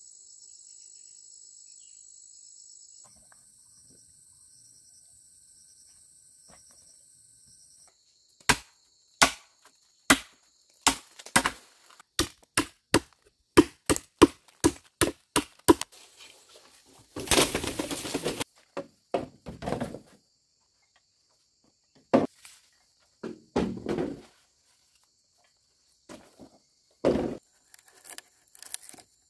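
Faint insect chirring at first, then a run of sharp chops into bamboo, about two a second, followed by a longer stretch of splintering and a few scattered chops near the end.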